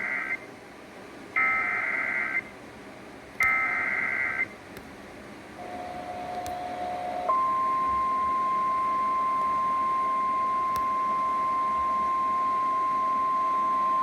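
Emergency Alert System header: the tail of one screeching data burst, then two more full bursts about two seconds apart. After a short lower tone, a steady single-pitch warning alarm tone (the National Weather Service's 1050 Hz tone) starts about seven seconds in and holds, heralding a severe thunderstorm warning.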